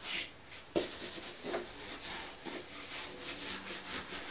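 Palms rubbing a cloth flat over a styrofoam block, a series of irregular brushing strokes of fabric on foam.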